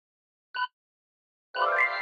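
Quiz countdown-timer beeps: one short electronic beep about half a second in and another near the end, where a ringing chime sound effect starts with it and rings on.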